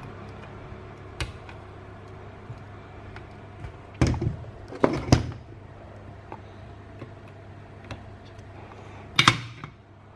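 Knocks and clatters of a circuit board being handled and turned over on a workbench: a cluster of three sharp knocks about four to five seconds in and one more near the end, over a steady low hum.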